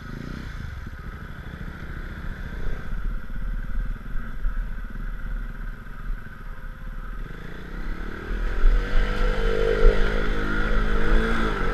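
KTM Duke 390 single-cylinder engine running at low revs as the motorcycle picks through mud. About eight seconds in, the revs rise and the engine gets louder.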